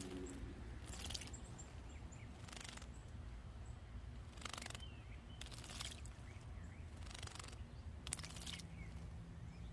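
A painted bunting bathing in a bird bath, splashing the water in about six short bursts, with faint bird chirps between the splashes over a low steady hum.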